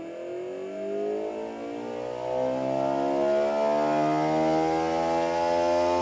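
Reed-switch pulse motor running, its clear disc rotor spinning between the drive coils with a steady machine whine whose pitch slowly rises as it speeds up.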